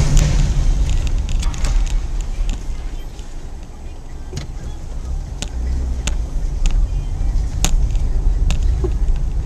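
Car cabin noise while driving slowly: a steady low engine and road rumble, with scattered light clicks and rattles.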